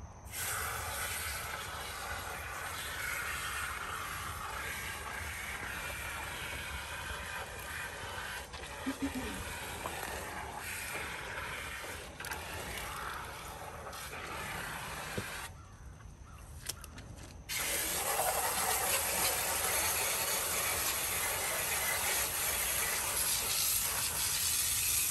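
Water from a hose spray nozzle rinsing the fins of an air-conditioner condenser coil: a steady hiss of spray. It stops for about two seconds past the middle and comes back louder.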